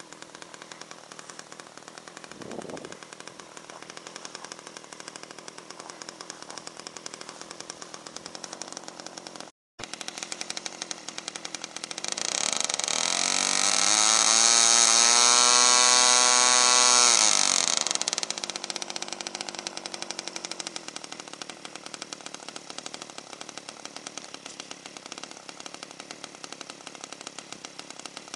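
Small model-airplane engine idling with fast ticking, then throttled up about twelve seconds in to a loud, high, steady note for about five seconds before being throttled back down to idle.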